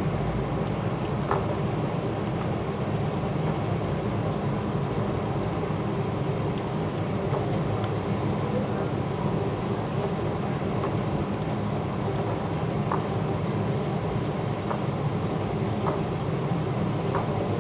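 Hands squishing and kneading raw chicken pieces in a wet yogurt-and-onion marinade, a steady squelching mixed with soft wet patters, over a constant low background hum.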